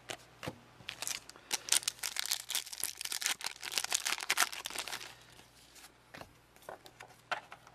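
A 1996 Fleer X-Men booster pack's foil wrapper being torn open and crinkled by hand: a dense crackle for about four seconds, thinning to a few scattered crinkles near the end.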